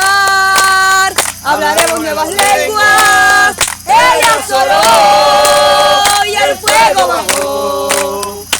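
A group of men and women singing together in long held notes, phrase after phrase with short breaths between.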